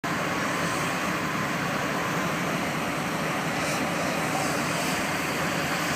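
Steady, unchanging rushing roar of machinery running, with a faint low engine hum under it.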